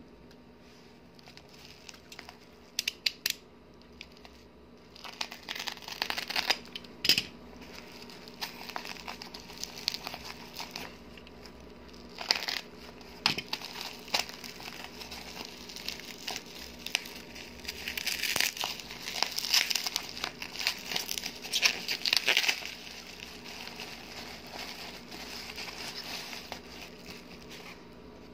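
Plastic bubble wrap crinkling and rustling as it is handled and pulled open, in irregular bursts with a few sharp clicks, busiest about two-thirds of the way through.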